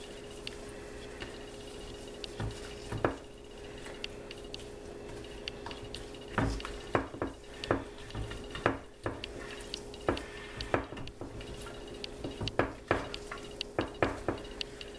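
Wet squishing of hands rubbing seasoning, onions and peppers into raw turkey wings, with irregular clicks and taps against the glass baking dish, over a faint steady hum.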